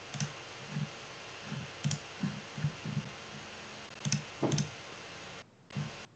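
Faint, scattered clicks and soft taps of a computer keyboard and mouse over a steady faint hiss, with the sound cutting out briefly near the end.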